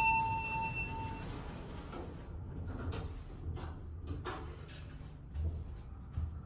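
A modernized elevator's electronic chime sounds one steady tone for about a second. Then comes a low rumble with scattered light clicks and knocks as the car's doors and equipment move.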